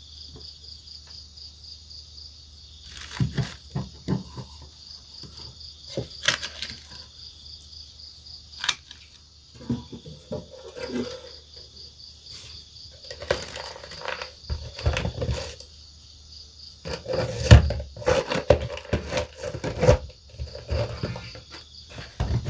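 Insects chirping in a steady, pulsing high-pitched drone, with scattered rustles, clicks and knocks over it that grow busier in the second half.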